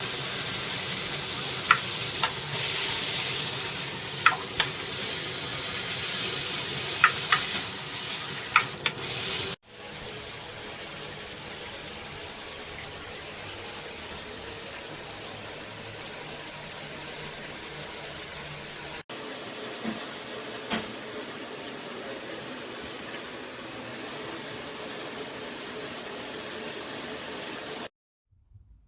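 Handheld shower head spraying water: a steady hiss, louder for the first third and with a few sharp splashes in it, then quieter after an abrupt break. It cuts off suddenly near the end.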